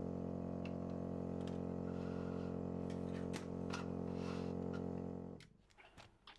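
Steady hum of lab equipment, a pitched drone with many even overtones, cutting off suddenly about five seconds in. Light plastic clicks of agar Petri dishes being picked up and set down on the bench sound over it and after it.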